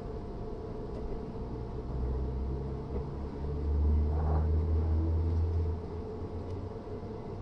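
Class 317/7 electric multiple unit with a steady electrical hum and a low rumble that swells briefly about two seconds in and again, louder, from about four to six seconds.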